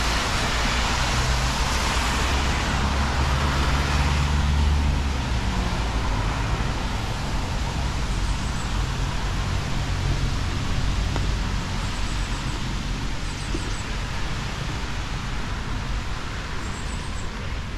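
Road traffic passing: a vehicle's low engine rumble over a steady hiss, loudest in the first five seconds, then easing off.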